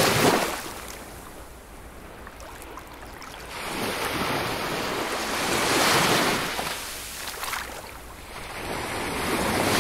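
Sea waves washing, the noise swelling and falling back: a surge at the start, a longer swell from about four to seven seconds in, and another building near the end.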